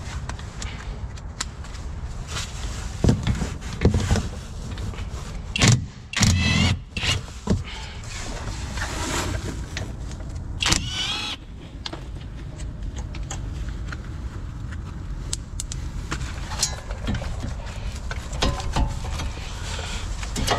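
Harbor Freight Hercules 3/8-inch cordless impact gun spinning off the 14 mm brake caliper bolts, in short hammering bursts about six seconds in and again at about eleven seconds, with metal tool clinks in between.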